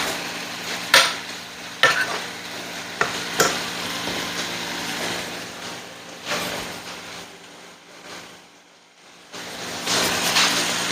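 Chicken sizzling as it fries in oil, butter and soy sauce, stirred with a utensil that knocks sharply against the pan a few times in the first few seconds. The sizzle fades for a moment around eight seconds in, then picks up again.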